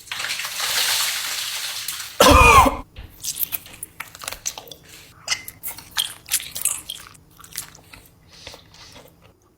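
A person biting and chewing crunchy food, with many short crunches that thin out near the end. A short loud cough-like vocal burst comes about two seconds in, after a hissing rustle at the start.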